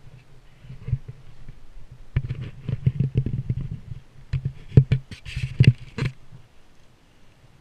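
Rustling and knocking against a body-worn action camera as the wearer shifts about while seated on a snowboard, over a low rumble; the sharpest knocks come in a cluster about two to six seconds in.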